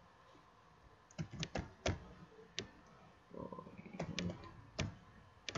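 Typing on a computer keyboard: about nine separate key clicks, unevenly spaced.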